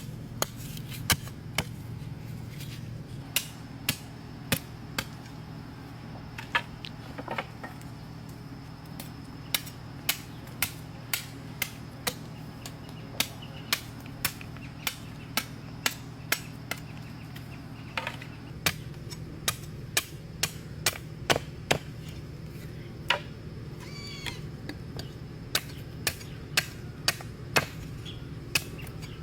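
Repeated sharp chopping strikes of a hand tool on wood, irregular, about one or two a second. A short high animal call sounds once late on.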